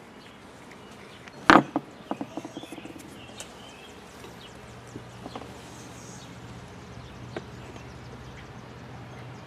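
A sharp knock about a second and a half in, followed by a few quick lighter clicks, as the hose connector parts are handled. A faint steady low hum sets in about four seconds in, with birds chirping faintly.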